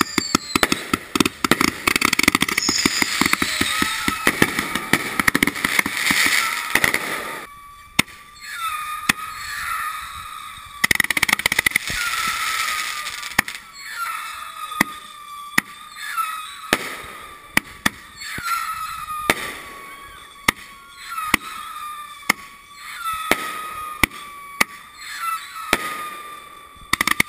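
Aerial fireworks going off. A dense run of rapid bangs and crackling comes first, then from about eight seconds in a string of shots, each a short whistle with sharp pops, roughly one a second.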